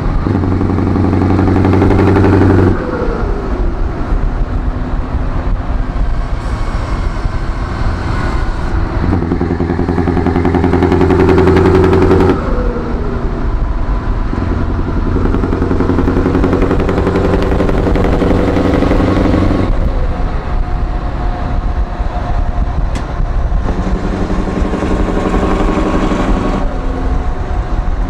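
Scania 164 580 V8 truck engine on open exhaust pipes, pulled hard four times for a few seconds each. Each pull cuts off sharply and the revs fall away to a lower running note in between.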